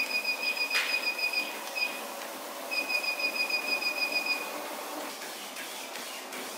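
Treadmill control console beeping rapidly, a short high beep about eight times a second, as the speed-up button is held and the speed steps up toward the 12 km/h top; each beep marks one speed increment. Two runs of beeps with a short break between, and a single sharp click about a second in, over the steady running of the treadmill's motor and belt, which runs on alone once the beeps stop.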